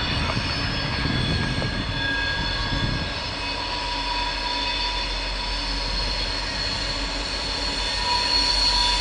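Norfolk Southern SD40E diesel helper locomotives approaching around a curve: a steady low engine rumble with thin, steady high-pitched squeal from the wheels on the curve.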